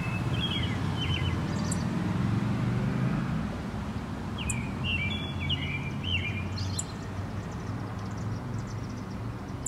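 Steady low background rumble with two short bursts of bird-like chirping, one near the start and one about five seconds in.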